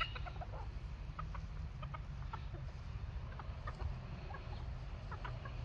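Serama bantam chickens clucking softly now and then, short scattered calls over a low steady rumble.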